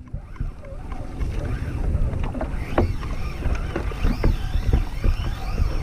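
Wind and water rumble on the microphone, with scattered knocks from the kayak and rod. From about halfway in comes a high, wavering whine: the fishing reel's drag screaming as a hooked Spanish mackerel strips line.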